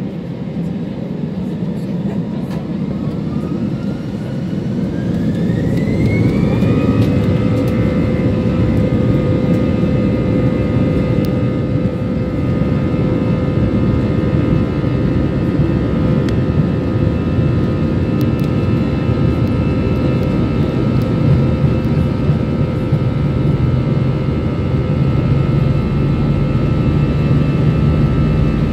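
Airbus A320-214's CFM56 jet engines spooling up to takeoff thrust, heard from inside the cabin. A whine climbs in pitch over about four seconds, then settles into steady tones over a loud rumble as the aircraft makes its takeoff run.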